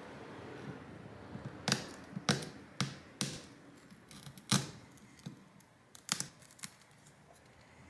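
Tool prying and picking at the cracked rear camera glass of a phone, with about eight sharp clicks and cracks at irregular intervals as pieces of glass break and snap loose.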